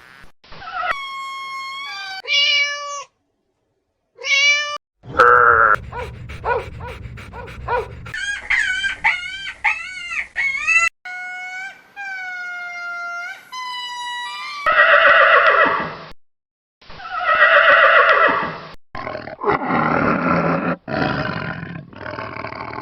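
A string of animal calls in short, abruptly cut clips. The first half holds high, wavering pitched cries. After about fifteen seconds come louder, harsher, rougher calls.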